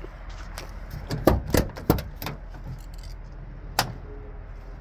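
Hino 268 truck's cab door being unlatched and swung open: a quick series of metallic clicks and clunks from the handle and latch in the first half, then one more sharp knock near the end.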